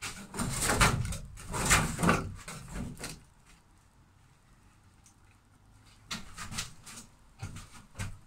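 Hand tool scraping and knocking against a caravan's ceiling panel and wooden roof strip: a quick run of scraping strokes over the first three seconds, then a few separate knocks near the end.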